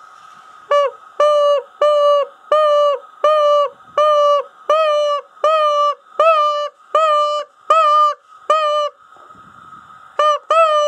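Primos Still Cottontail Rabbit mouth call blown to imitate a cottontail rabbit in distress, used to call in coyotes. It gives a string of about a dozen short, high, pitched cries, roughly one every 0.7 s, then after a brief pause a faster run of cries starts near the end.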